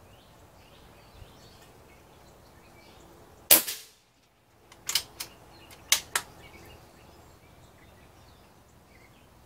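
Umarex Gauntlet .22 PCP air rifle firing once about three and a half seconds in, a single sharp shot. It is followed by a cluster of quieter metallic clicks, the bolt being worked to chamber the next pellet from the magazine.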